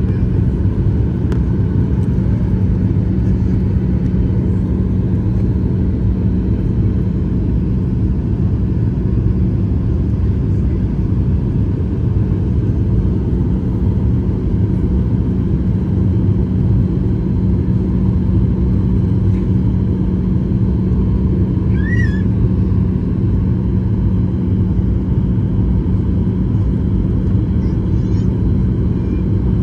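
Steady, loud drone of an airliner cabin on descent: jet engines and rushing airflow, with a constant low hum. A short high chirp cuts through once about three-quarters of the way in.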